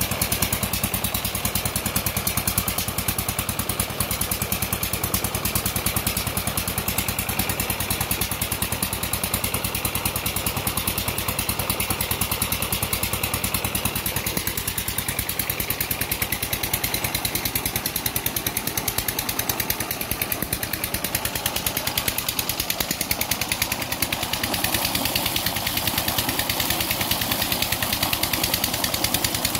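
Diesel engine driving a tubewell pump, running steadily at an even speed. Near the end the splash of water pouring from the outlet pipe into the channel joins it.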